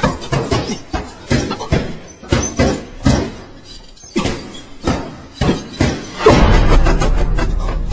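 Fast punches and kicks landing on a heavy punching bag, sharp thuds several times a second. About six seconds in a heavier blow lands, followed by a long low rumble that slowly fades.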